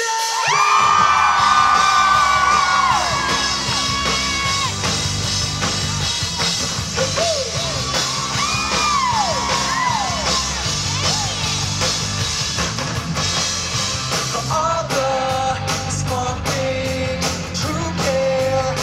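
Live rock band playing loud: electric guitars, keyboard, bass and drums, with held lead notes that bend up and down in pitch.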